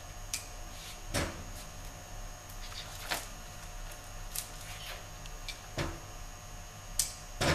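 Wires of an automotive wiring harness being handled and sorted on a workbench: scattered light clicks and knocks, about seven of them, the loudest near the end, over a steady electrical hum.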